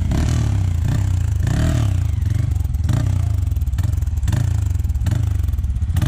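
Off-road trail motorcycle engines running, rising and falling in revs as the riders pick their way along a dirt trail. Scattered clicks and knocks sound through it.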